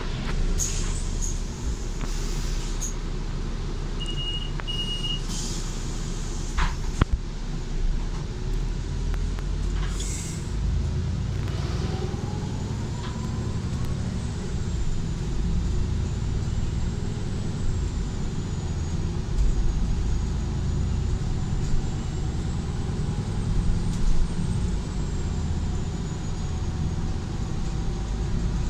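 Interior ride noise of a Solaris Urbino 8.9 city bus under way: a steady low engine and road rumble. Over it come a few short hisses in the first ten seconds and two short high beeps about four seconds in.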